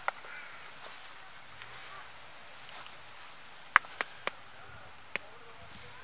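Sharp taps on a plastic mixing bowl as a spoon works chopped herbs and an egg is cracked on the bowl's rim: one click at the start, a quick run of three taps past the halfway mark, and one more about a second later.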